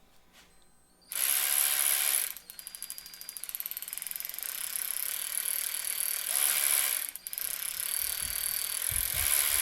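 S-Long 3/8" 12 V cordless ratchet running unloaded on its trigger: a short full-speed whir about a second in, then a run that starts slow with rapid clicking and builds up in speed, a brief let-off near the end, then full speed again.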